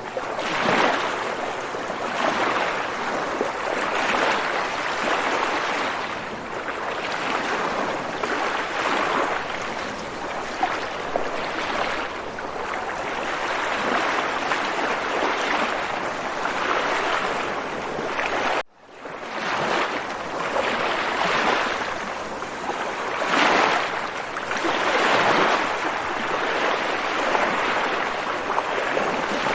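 Water waves washing in a continuous rushing hiss that swells and eases every second or two. It cuts out suddenly for about half a second roughly two-thirds of the way through, then resumes.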